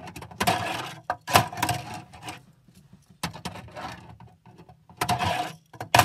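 Tech Deck fingerboard's small wheels rolling across a plastic ramp in a few short runs, with several sharp clacks of the board striking the ramp and rail.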